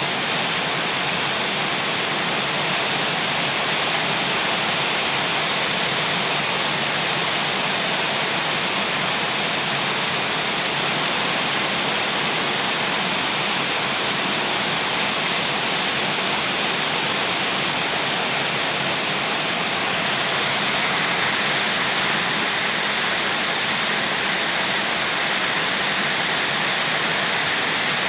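Heavy rain pouring down in a storm: a steady, dense hiss with no let-up.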